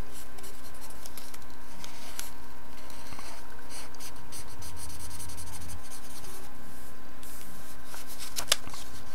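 Black marker pen drawing on paper: a run of short scratchy strokes as stripes are filled in, with one sharp click near the end.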